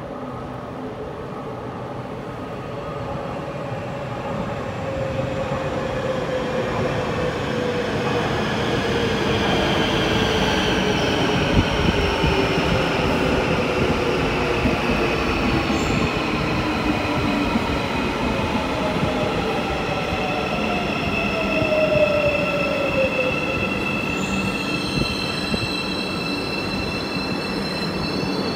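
Marmaray electric commuter train running into an underground station and braking to a stop. Its rumble grows louder as it approaches, its whine falls steadily in pitch as it slows, and high squealing tones come in near the end as it halts.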